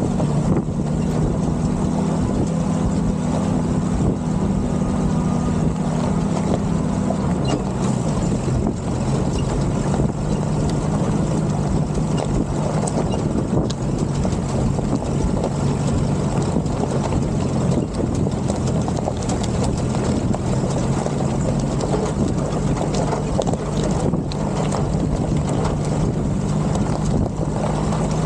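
M151 military jeep's four-cylinder engine running steadily under load on a rocky trail climb, its note dropping about seven seconds in, with many small knocks and rattles throughout.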